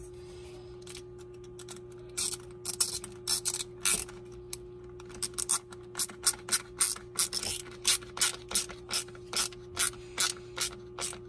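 Quarter-inch drive ratchet with a 5/16 socket clicking in quick short strokes as it tightens a hose clamp. The clicking starts about two seconds in and runs at about three bursts a second.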